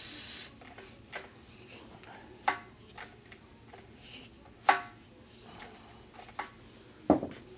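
A brief hiss from an aerosol can of lubricant sprayed onto an old outboard motor, then scattered clicks and clinks from handling the can and parts, the two loudest with a short metallic ring.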